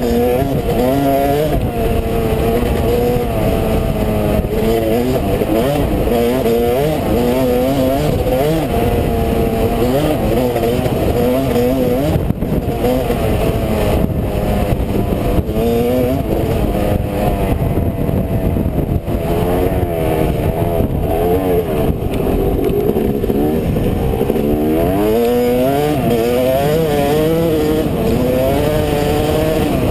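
2005 Yamaha YZ250 two-stroke dirt bike engine running as the bike rides along a dirt trail, its pitch rising and falling over and over with the throttle and gear changes. A steady rush of wind and tyre noise runs underneath.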